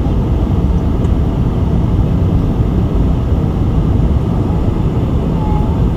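Steady low rumble inside a Boeing 747-400's passenger cabin in flight: airflow and engine noise from its four Pratt & Whitney PW4056 engines.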